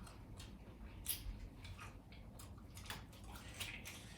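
Close-miked chewing of fried seafood: a run of irregular short, crisp clicks and mouth sounds.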